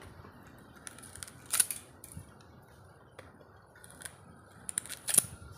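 Sugarcane being bitten and torn with the teeth: sharp cracks of the fibrous stalk splitting, one about a second and a half in and a quick cluster near the end, the last the loudest.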